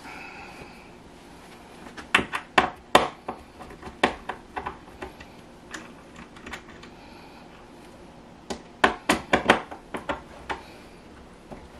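Handling clicks and small knocks as thermostat wires are worked onto the screw terminals of a wall-mounted thermostat base: two bursts of sharp clicks about two and eight and a half seconds in, with scattered single ticks between.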